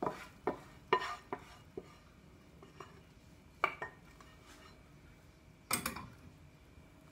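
Wooden spoon knocking and scraping against a pan as a thick sauce is scraped out into a pot. A quick run of sharp taps comes in the first two seconds, then a single tap, then a louder scrape near the end.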